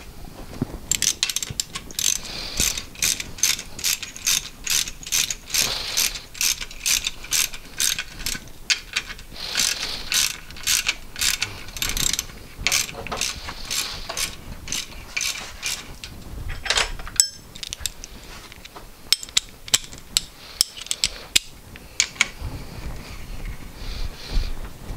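Hand ratchet wrench clicking in quick runs, a few clicks a second with short breaks, as fasteners on a two-stroke jet ski engine are run down. Near the end come a few louder single clicks.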